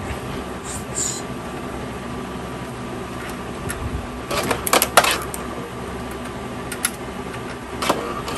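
Network patch cables handled at a server rack: a cluster of sharp clicks and rattles about halfway through and another near the end, over the steady whir of running rack equipment.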